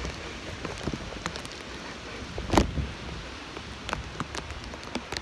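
Tropical-storm wind gusting across the microphone: a steady rushing rumble with scattered small ticks, and a louder gust about two and a half seconds in.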